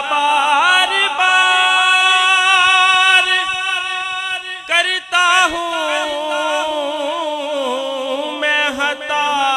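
A man singing an Urdu naat unaccompanied into a microphone, drawing out long, ornamented held notes with a brief break about halfway through.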